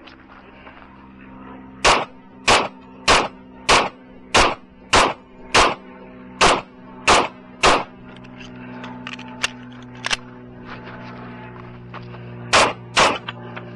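Glock 20SF 10mm pistol firing rapidly: a run of ten shots about 0.6 seconds apart, then a pause, a single shot about ten seconds in, and a quick pair near the end.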